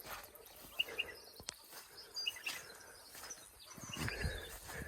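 Faint outdoor ambience with a few short bird chirps, and a sharp click about a second and a half in.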